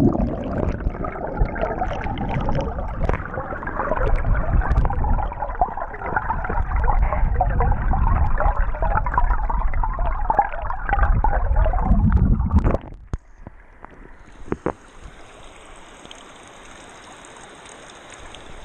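Rushing creek water heard through a camera microphone held underwater in a shallow riffle: a loud, muffled gurgling rumble. It drops sharply about thirteen seconds in to a much quieter hiss.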